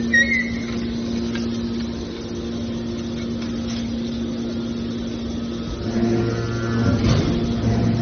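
Hydraulic scrap metal baler's power unit humming steadily as its pump runs. A deeper tone joins about six seconds in, with a brief knock a second later, as the load on the hydraulics changes.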